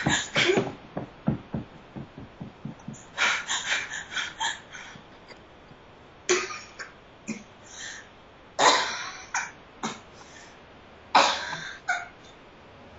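A woman's rapid, jerky breaths, about four a second, at the start, then coughs and gasps in short bursts, the loudest about eight and a half and eleven seconds in, the sounds of a person in distress.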